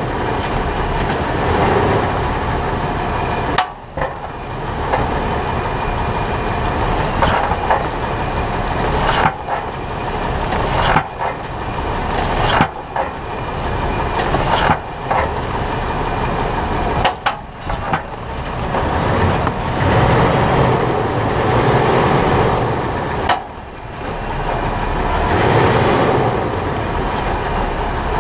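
Front suspension of a 2011 Toyota 4Runner heard from underneath while driving: steady road and tyre rumble with occasional knocks from the front end. The owner suspected a bad lower control arm bushing; a new lower control arm, with its bushing and lower ball joint, cured the noise.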